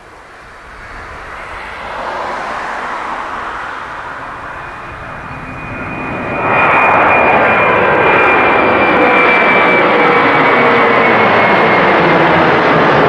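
Jet engines of a Boeing 767-300 airliner on its takeoff run, growing louder and then jumping to a loud, steady rush about halfway through, with a high fan whine on top that sinks slightly in pitch.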